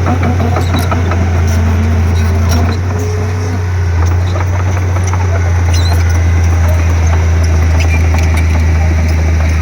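Komatsu D31P crawler bulldozer's diesel engine running steadily with a deep drone, easing briefly about three seconds in before returning to its previous level.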